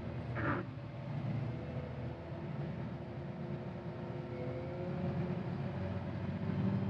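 CAT 950GC wheel loader's diesel engine running steadily, heard from inside the cab, its pitch rising a little about four and a half seconds in. A brief falling swish about half a second in.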